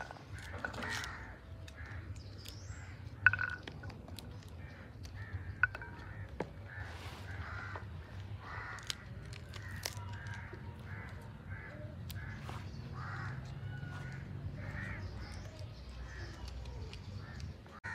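Crows cawing again and again, short harsh calls roughly once a second, over a steady low hum. A sharp knock about three seconds in stands out as the loudest sound.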